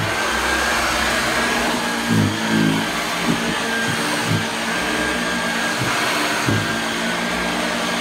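Hoover Junior U1012 upright vacuum cleaner running steadily with a high whine, its note dipping briefly a few times as it works.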